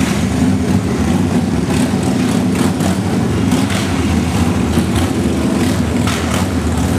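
Street traffic: motor vehicle engines running steadily, with motorcycles among them.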